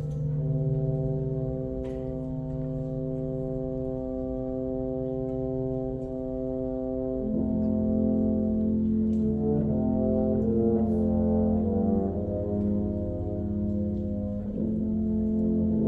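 Wind band playing sustained brass chords, with trombones prominent; about seven seconds in the harmony shifts to a fuller, lower chord, and moving lines enter above it.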